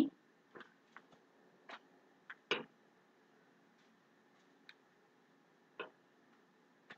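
A spoon clicking faintly and irregularly against a glass bowl, about eight light taps, while thick chocolate glaze is scooped out into a paper piping bag.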